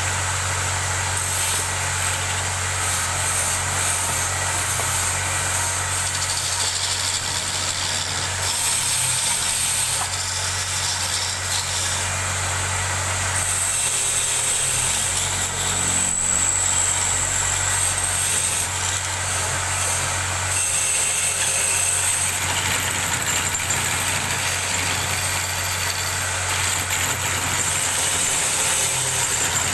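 Wood lathe running steadily with a low, even hum, and a rougher hiss above it that changes from moment to moment.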